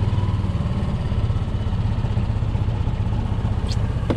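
A golf cart's engine running steadily as the cart moves, a low pulsing hum, with a light click near the end.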